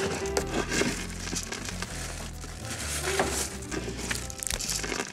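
Irregular rustling and crinkling, close to the microphone, as a kitten scrambles and plays.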